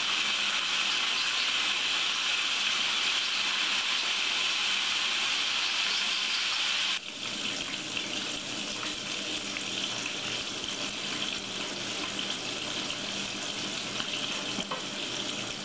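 Frog legs in a corn-flour coating deep frying in a pot of hot oil, a steady sizzle and bubbling. About seven seconds in it drops suddenly to a quieter sizzle.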